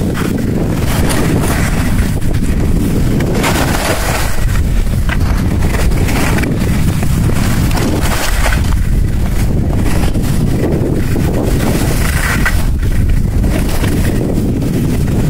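Wind buffeting the microphone of a camera carried by a moving skier, a loud steady rumble. Over it, a hiss comes and goes every couple of seconds as skis scrape across packed snow on each turn.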